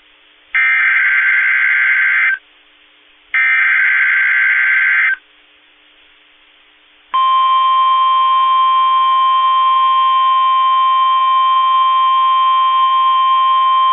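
Emergency Alert System signalling: two loud bursts of digital SAME header data, each a shrill warble about two seconds long, a second apart. About seven seconds in, the steady attention tone starts and holds, announcing the next warning.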